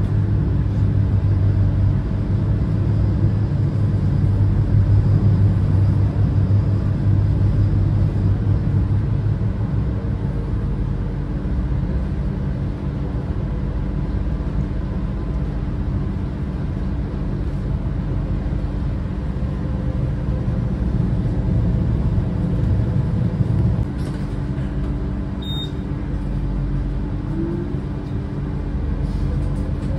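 Steady low rumble of a moving vehicle with a constant hum, louder in the first third; a short high beep about 25 seconds in.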